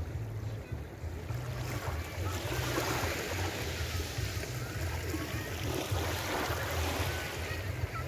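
Small waves lapping on a sandy beach: a gentle wash of surf swells about two seconds in as a wave runs up the sand, then eases off, over a steady low rumble.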